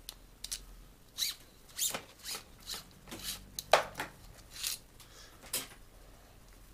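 Short clicks and scrapes of hand work on a cheap plastic 6-speed twist-grip shifter as the steel shift cable and its end nipple are worked out of it: about a dozen quick ticks and rustles, the loudest a little past the middle.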